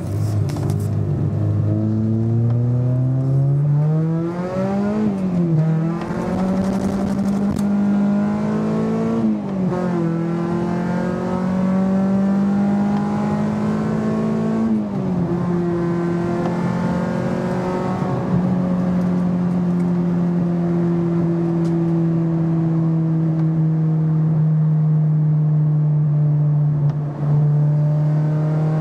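2001 Honda Prelude's H23A four-cylinder engine and OBX twin-loop exhaust, heard from inside the cabin as the car pulls onto the highway. The engine note climbs and dips briefly three times, at about five, nine and fifteen seconds in, then holds steady at cruising speed.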